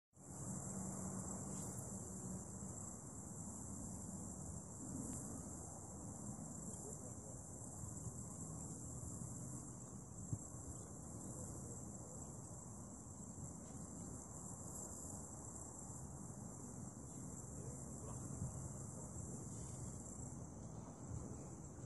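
Steady high-pitched insect chorus, typical of crickets, over a low rumble of background noise.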